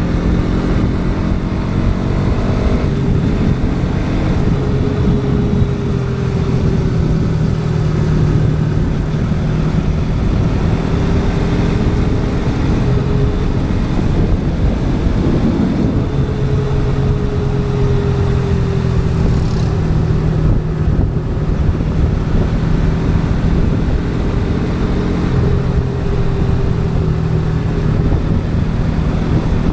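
Bajaj Pulsar NS200's single-cylinder engine running on the road, heard from on board. Its pitch rises and falls gently with the throttle, and the revs dip briefly about 3 seconds in and again about halfway through.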